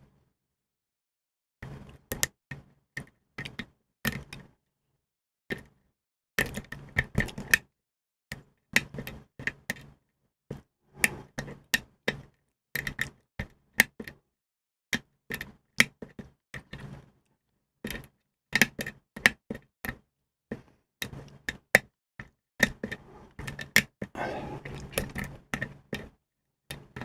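A metal lock pick working the pins of a small Ilco mortise pin-tumbler cylinder under a tension wrench: irregular sharp clicks and taps in clusters. There is a short stretch of continuous scraping near the end.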